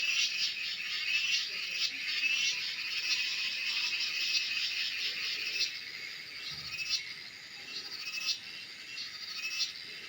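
Cicadas calling in a dense, rapidly pulsing chorus, with a few sharper chirps standing out in the second half.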